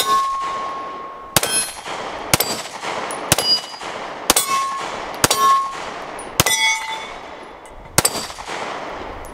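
Eight pistol shots about a second apart, each hitting a steel plate target that rings with a clear ping that fades. There is a longer pause before the last shot.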